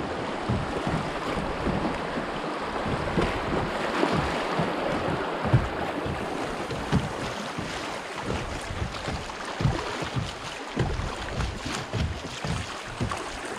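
Kayak running down a shallow river riffle: water rushing and splashing against the hull, with wind buffeting the microphone in frequent low thumps.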